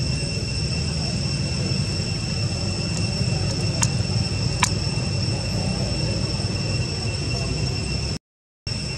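Outdoor ambience: a steady high-pitched whine over a low rumble, with two short clicks about four seconds in. The sound cuts out completely for a moment near the end.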